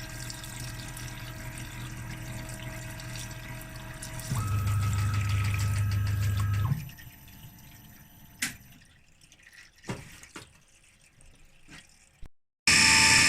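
Workshop machinery humming steadily; about four seconds in the hum steps up louder with a higher tone, then shuts off near seven seconds. A few sharp clicks follow, and a much louder sound cuts in abruptly near the end.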